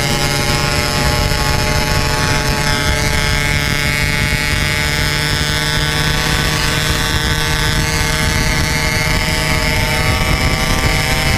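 Yamaha RX-King 135cc two-stroke single-cylinder engine, fitted with a Packing Power aftermarket exhaust, running at a steady cruising speed with an even, nearly constant pitch.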